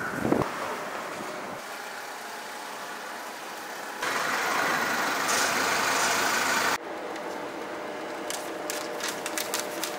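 Steady city street background noise with a low traffic hum, in several stretches that jump abruptly in level, then a run of light clicks near the end.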